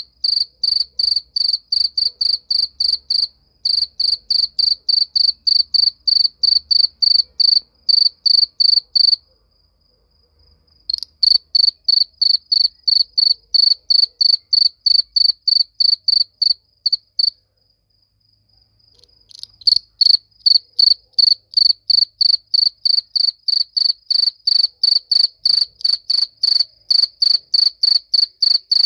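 A cricket chirping loudly and close, in an even rhythm of about three to four high chirps a second. It stops twice for about two seconds, then takes up the same rhythm again.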